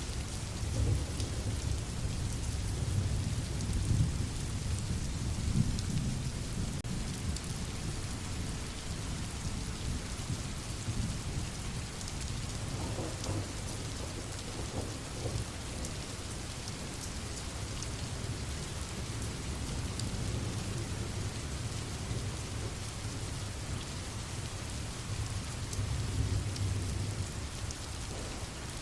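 Steady rain with low thunder rumbling, the rumble swelling in the first few seconds and again near the end.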